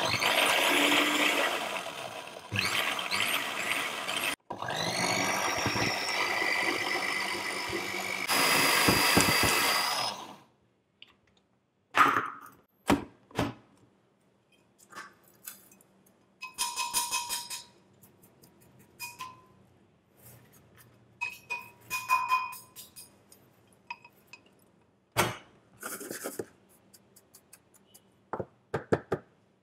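Countertop blender grinding tortilla chips into crumbs in three pulses over about ten seconds, its motor note rising as the chips break down. Then scattered clinks and taps as the glass jar is lifted off, the crumbs are tipped onto a plate, and a spatula scrapes them.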